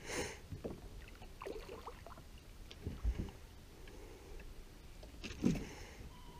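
Water lapping and sloshing against a small boat's hull, with a few soft knocks and splashes.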